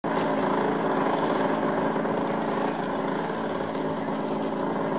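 Gasoline engine of a 107-inch PilotRC Extra 330SC radio-controlled aerobatic plane, fitted with an MTW silencer, running steadily at idle with the propeller turning.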